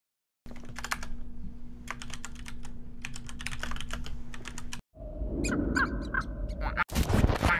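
About four seconds of quick, irregular clicks over a steady low hum, like rapid typing. After a sudden cut comes a short run of chirping high tones, then another abrupt cut to a louder, denser sound near the end.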